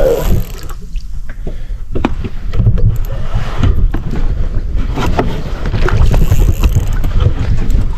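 Gusty wind buffeting the microphone as a heavy, unsteady low rumble, with scattered knocks and clatter from handling the camera aboard a small fishing boat.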